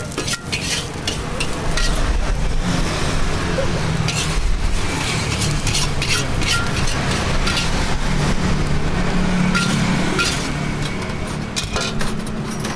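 Steady low rumble of passing road traffic, with sharp metal clinks of a spatula against a wok every second or two.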